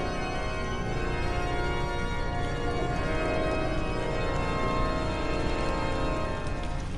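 Organ music: sustained chords that shift about three seconds in, over a steady low rumble.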